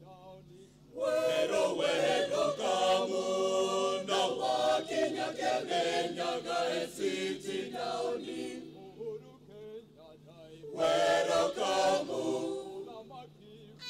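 Mixed choir of men's and women's voices singing together in harmony. The singing comes in about a second in, eases off a little past the middle, then swells again briefly before dropping away near the end.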